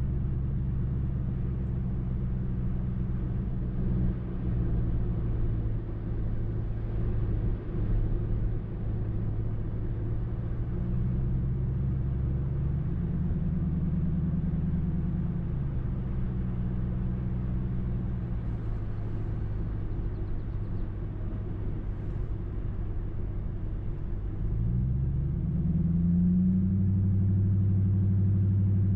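2005 Mercury Grand Marquis 4.6-litre V8 running through a muffler-deleted exhaust (catalytic converters into an H-pipe, no mufflers) while driving. The pitch rises and falls back near the middle, then climbs again near the end as the car accelerates, settling into a louder, steady exhaust note.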